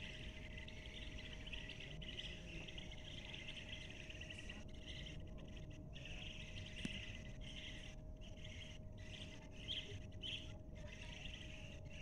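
A large flock of small birds chirping together: a dense, continuous chorus of high twittering.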